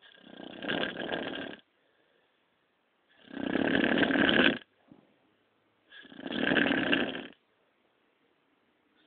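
A sleeping man snoring: three snores, each about a second and a half long, coming about every three seconds with quiet breaths between.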